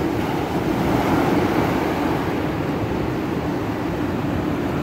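Steady low roar of ocean surf breaking on a sandy beach, with no separate crashes standing out.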